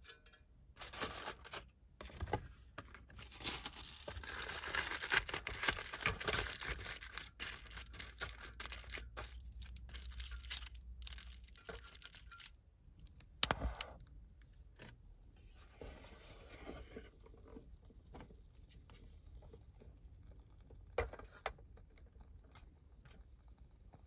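Rustling, crinkling and tearing, like packaging being handled and opened, with many small clicks. About halfway through there is one sharp knock, then only occasional faint clicks and rustles.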